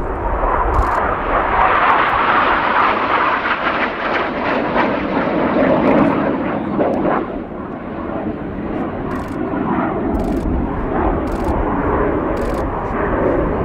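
BAE Hawk T1 jet trainers flying past in formation, a steady jet roar. It is loudest in the first half and eases a little after about seven seconds.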